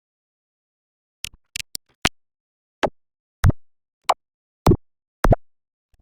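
A string of about ten short, sharp cartoon sound-effect hits, pitched down. They start with a quick irregular cluster of five, then settle to about one every half second.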